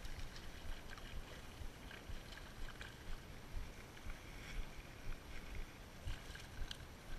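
Water splashing in irregular bursts as a hooked fish thrashes at the surface near the bank, over a low wind rumble on the microphone.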